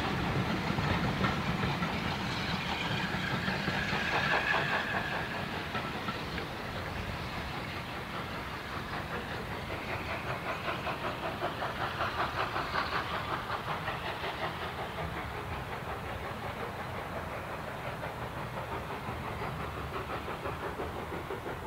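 Steam train double-headed by LSWR T3 No. 563 and SECR O1 No. 65 pulling away, its coaches clattering rhythmically over the rail joints with steam hiss, the whole fading as the train recedes.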